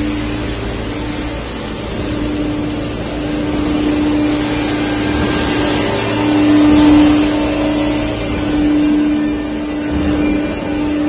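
Three-ram hydraulic metal baler running: a steady hydraulic pump whine over continuous machine noise, swelling loudest about seven seconds in.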